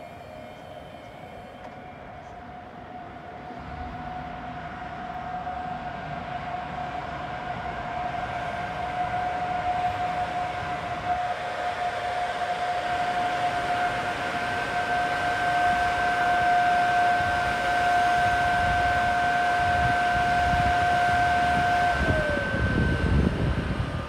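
Electric train's traction whine: a steady high tone that grows louder as the train approaches, then drops in pitch about 22 seconds in, over a rising rumble of wheels on the rails.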